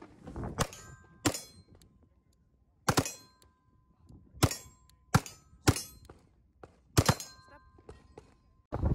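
Glock pistol fired about seven times at uneven intervals at steel plate targets, several shots followed by the ringing of the struck steel, which hangs on for a second or more.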